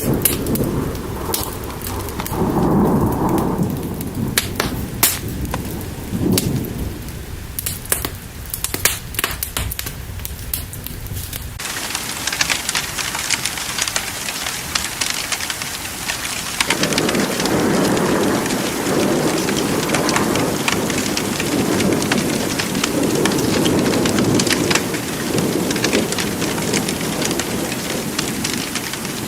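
Thunderstorm: low rolling thunder with sharp crackles for about the first ten seconds, then a sudden switch to dense, steady rain, with thunder rumbling again in the later part.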